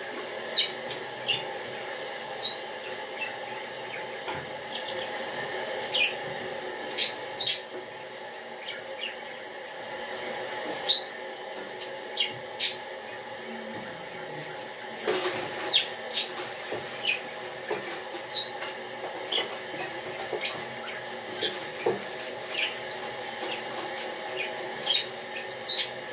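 Tap water running into a sink as a plastic mesh mat is washed by hand, with frequent short, high squeaks scattered through it.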